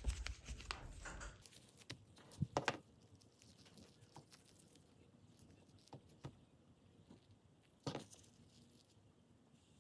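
Faint clicks and taps of small spinning-reel parts being handled and pulled apart: the Ugly Stik GX2 reel's brass pinion gear and its bearing being worked out of the reel body. There are a few sharper clicks early on the pry, in the middle and near the end.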